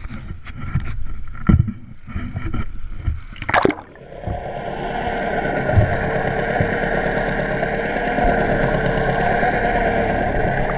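Knocks and bumps of a camera being handled, then a splash about three and a half seconds in as it goes into the water; after that, a steady muffled underwater rush with a constant hum running through it.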